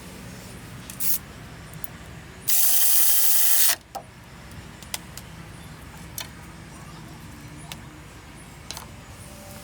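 A loud, rapid mechanical clatter lasting about a second, like a ratchet turning, among scattered clicks and knocks of tool work on the car battery's fasteners.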